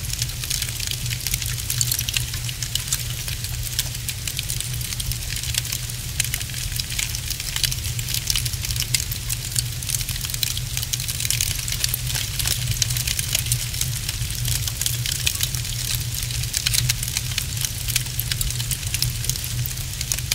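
Wood fire crackling steadily, with many small pops and snaps over a low, even rumble.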